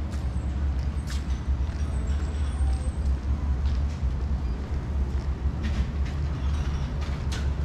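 Outdoor street ambience with a steady low rumble and a few sharp clicks, one about a second in and two near the end.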